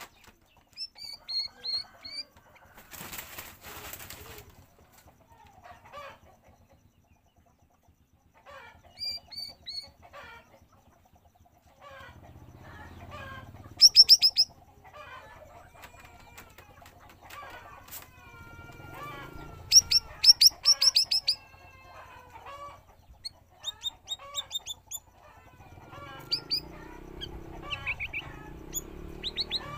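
Cucak rawis bulbul calling: scattered sharp, high chirps and short warbling phrases, with two loud runs of rapid notes about fourteen and twenty seconds in. A short burst of rustling noise comes about three seconds in.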